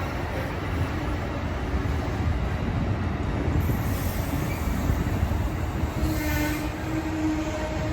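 Train running past with a continuous low rumble; a steady held tone joins about six seconds in.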